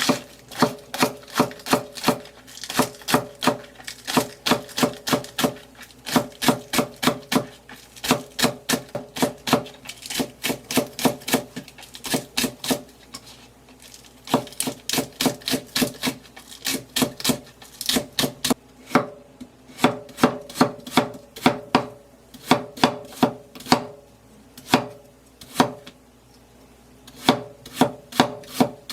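Knife chopping food on a cutting board: a quick, even run of strokes about three to four a second, each with a short knock of the board, broken by a few brief pauses.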